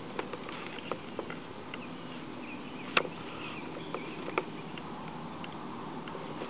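Scale radio-controlled UH-72 Lakota model helicopter running with its four-blade rotor turning: a steady hiss and hum, with scattered sharp clicks at irregular times, the loudest about halfway through.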